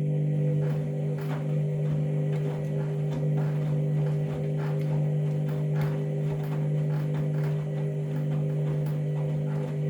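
Candy washing machine at the start of its Whites 40 cycle, giving a steady electric hum with faint ticks over it.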